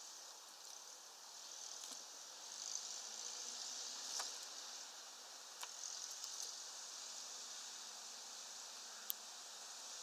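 Faint, steady outdoor hiss with a handful of short, sharp clicks scattered through it, from a hawfinch feeding and shifting about at a net bag of peanuts.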